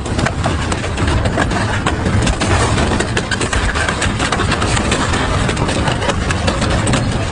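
Double-shaft industrial shredder running under load, its motor humming steadily while the blades crunch and tear metal in a dense stream of irregular cracks and bangs.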